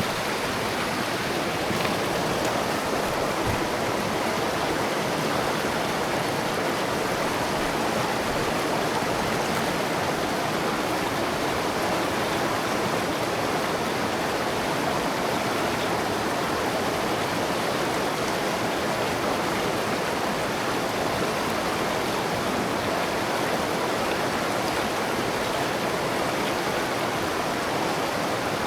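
River water flowing and rushing steadily, with no change in level.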